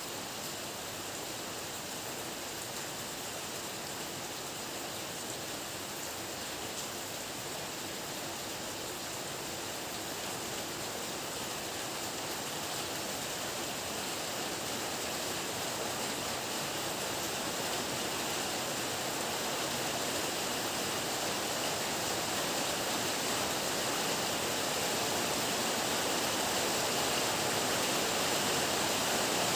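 Heavy rain falling in a steady, even hiss that slowly grows louder.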